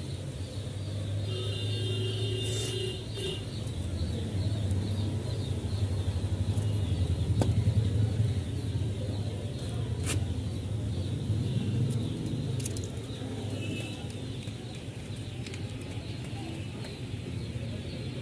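A steady low mechanical rumble, with a few light clicks as brass pump fittings are handled and short high chirps about two seconds in and again near the end.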